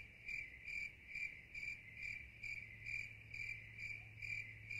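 Regular high-pitched chirping like a cricket's, about two and a half chirps a second, over a faint steady low hum.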